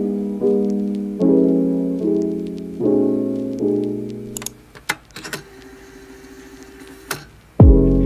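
Soft piano background music, a chord struck about every second. It fades out about halfway through, and a new piano piece with a deep bass note starts near the end.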